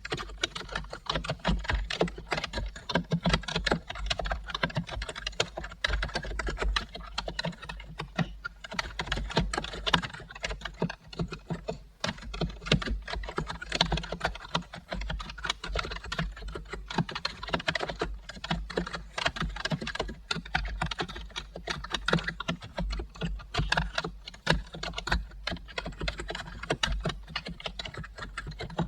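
Steady, fast typing on a computer keyboard: a dense run of key clicks with no long pauses.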